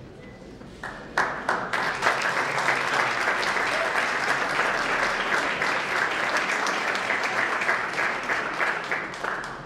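Applause from a roomful of people clapping. It starts about a second in and dies away near the end.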